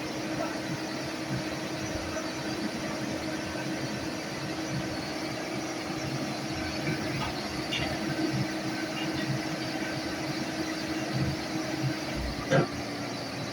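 Heavy machine engine running steadily at a low, even pitch, with a sharp knock a little before the end.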